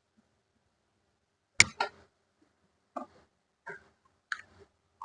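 A few sharp clicks and taps from work on a home theatre amplifier circuit board: two loud clicks close together about one and a half seconds in, then three fainter ones about a second apart.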